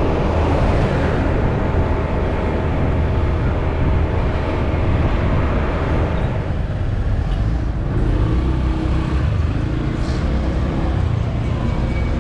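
Small motorcycle being ridden through city traffic: its engine running steadily under a constant rumble of road and wind noise.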